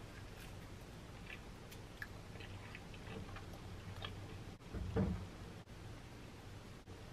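Small knife slicing a banana, with faint soft clicks as slices drop onto a bagel half, and one dull thump about five seconds in.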